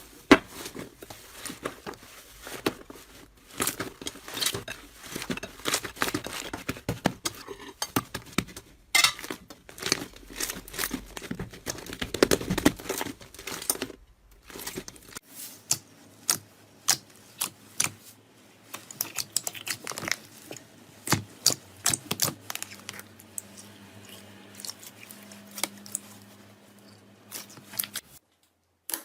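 Slime being squeezed, pressed and poked by hand, giving many sharp sticky crackles and pops. The background changes about halfway through, and there is a brief silent break near the end.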